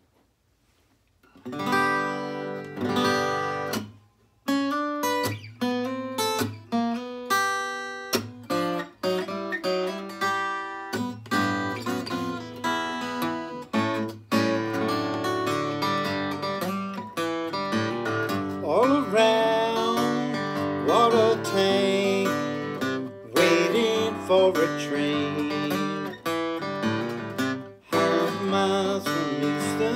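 Solo acoustic guitar playing an instrumental intro, starting about a second and a half in.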